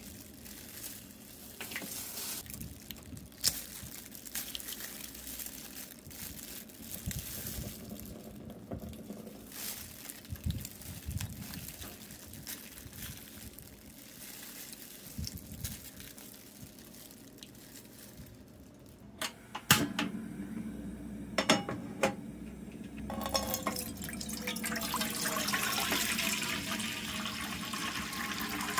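Water poured in a steady stream into a frying pan, growing louder over the last several seconds. Before it come quieter handling sounds and a few sharp clicks.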